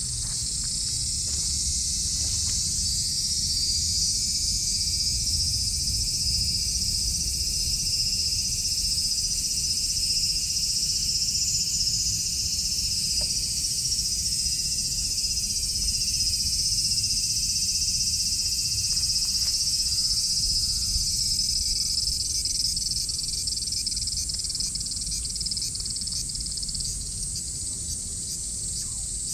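A chorus of cicadas calling, a steady, dense high-pitched drone with no breaks, over a low rumble.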